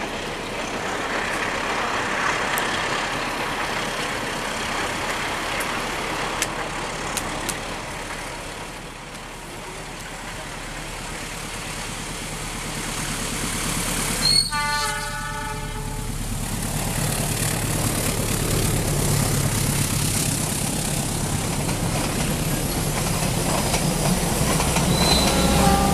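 A CC 206 diesel-electric locomotive sounds its multi-tone horn once, for about a second and a half, about halfway through. Its engine rumble then grows louder as it and its passenger coaches pass close by.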